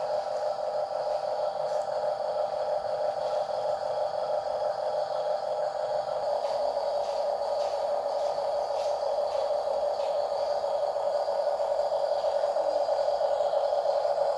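Small electric motor and gearbox of an RC crawler whining steadily at an even pitch, with a few faint clicks partway through.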